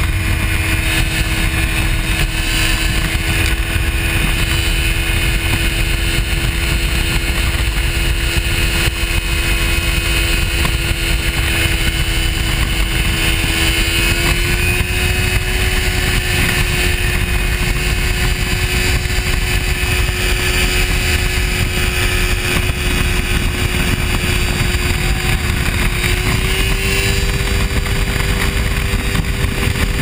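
Ultralight airplane's engine and propeller running steadily in flight. The engine note steps up slightly in pitch about halfway through and again near the end.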